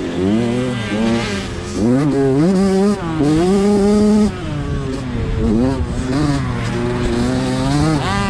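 Motocross bike engine heard up close from the bike itself, its revs repeatedly rising and falling; the revs are held high for about a second around three to four seconds in, then cut back sharply, and climb again near the end.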